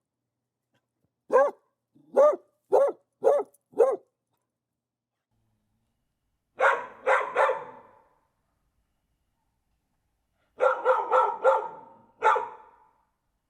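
Dog barking in three bursts: five sharp barks about two a second, a pause, three quick barks, another pause, then four rapid barks and one more. The later barks trail off with a room echo.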